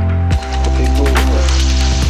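Background music with a deep, steady bass line and a sharp beat.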